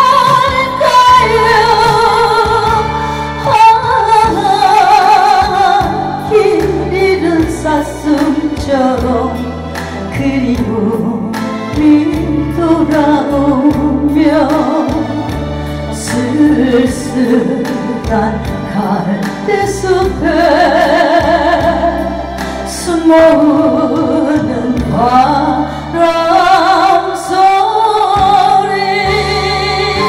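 A woman singing a Korean ballad into a microphone with strong vibrato, over musical accompaniment.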